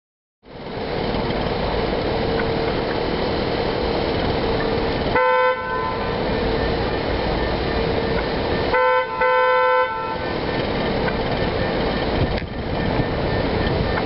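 Car horn honked three times over steady traffic and idling-engine noise: one short beep about five seconds in, then a quick beep followed by a longer one about nine seconds in. It is urging a scooter rider stopped at a green light to move on. A single thump follows about twelve seconds in.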